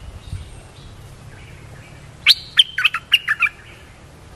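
A bulbul calls: faint notes first, then, about two seconds in, a loud quick run of about eight notes lasting just over a second.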